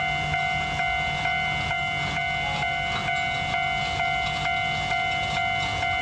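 Japanese level-crossing warning bell ringing with its steady repeating "kan-kan" clang, about two and a half strokes a second.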